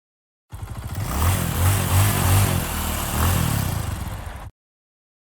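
Motorcycle engine revved in a few quick blips over a steady run, starting abruptly and cutting off dead.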